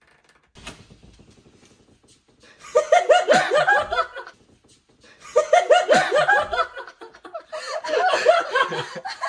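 Excited laughter in three bouts of quick, high-pitched bursts, each lasting a second or more, starting after a quiet first two seconds.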